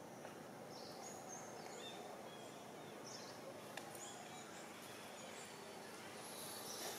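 Faint outdoor ambience: a steady hiss with a scattering of short, high chirps.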